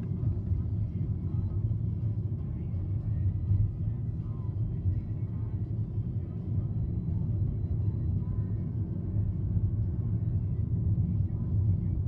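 Steady low rumble heard from inside a moving car's cabin: the car's road noise mixed with a freight train of loaded hopper cars rolling alongside.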